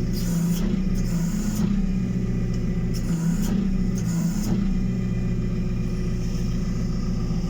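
JCB 540-170 telehandler's diesel engine idling steadily, with four short bursts of hydraulic hiss and a dip in the engine note as the hydraulic controls are worked, the last ending about four and a half seconds in.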